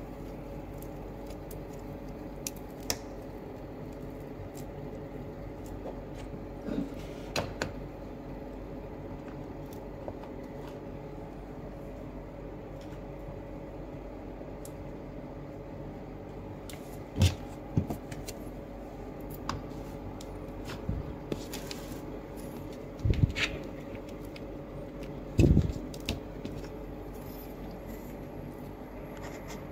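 Scattered clicks and light knocks of a UFI box and USB cable connectors being handled and plugged in on a tabletop, with the loudest knocks in the second half, over a steady low hum.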